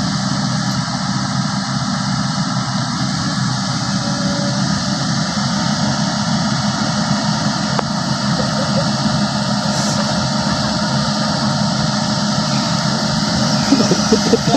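Long-arm excavator's diesel engine running steadily at an even speed.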